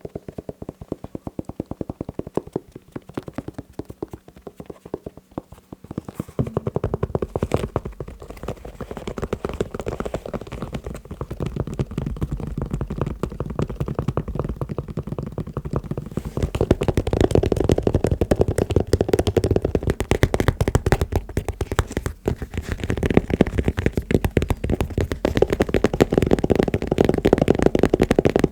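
Fast, dense tapping on shoes, many small taps a second. The taps grow louder and fuller about six seconds in, and louder again from about sixteen seconds.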